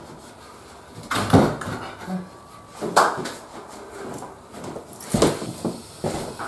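Handling of a long pine timber rail against a plasterboard wall: three sharp wooden knocks spread over several seconds, with a few lighter knocks near the end.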